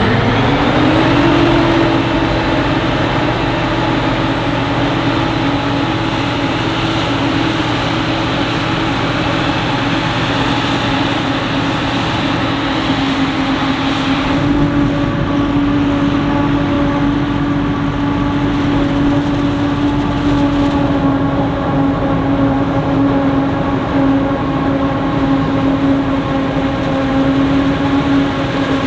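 Forage harvester running steadily under load, with a strong, even hum. The pitch rises briefly near the start, and the sound changes a little about halfway through.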